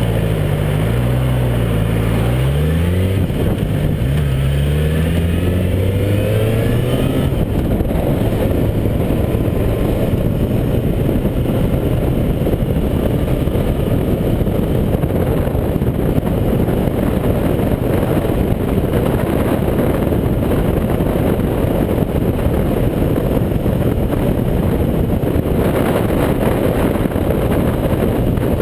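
Motorcycle engine accelerating through the gears, its pitch climbing, dropping at each shift and climbing again. After about seven seconds, heavy wind rush on the microphone at riding speed drowns it, with the engine running steadily underneath.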